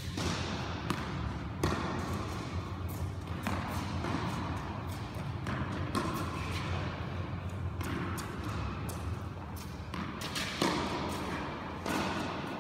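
Tennis ball being struck by a racket and bouncing on the court, a sharp knock every second or two, echoing in a large sports hall over a steady low hum.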